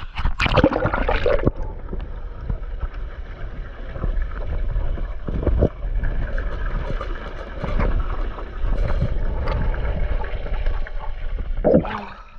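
Water sounds from a camera going under in a swimming pool: a splash as it goes under, then a steady underwater rumble, and a splash as it breaks the surface near the end.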